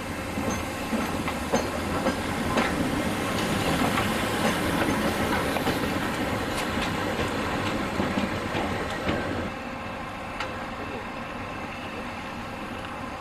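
DR class 50 steam locomotive rolling slowly past, its wheels clicking and clattering over rail joints and points, with a hiss. The sound drops off about nine and a half seconds in as the locomotive moves on.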